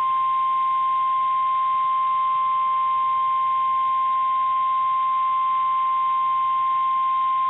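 NOAA Weather Radio 1050 Hz warning alarm tone: one loud, steady, unbroken tone. It signals that a warning message, here a severe thunderstorm warning, is about to be broadcast.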